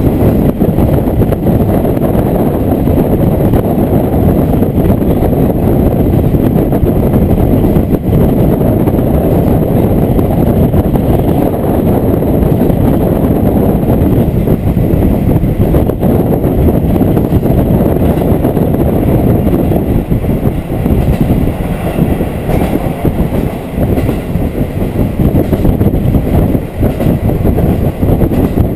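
Diesel railcar running along the line, heard from inside the carriage: a steady, loud rumble of engine and wheels on the rails.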